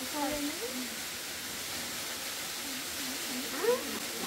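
Low voices of a family talking quietly while eating, over a steady hiss; one voice rises briefly and louder near the end.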